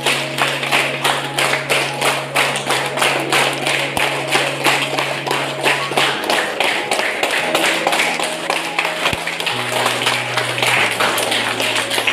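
Hand clapping in a fast, steady rhythm along with music. Held electronic keyboard notes underneath change pitch several times.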